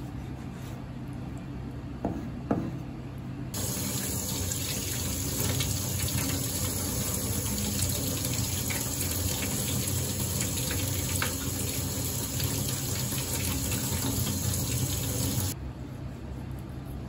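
Kitchen tap running into a stainless steel sink, the stream falling over hands and fish roe being rinsed under it; it starts a few seconds in, runs steadily for about twelve seconds and is shut off shortly before the end. Two short knocks come just before the water starts.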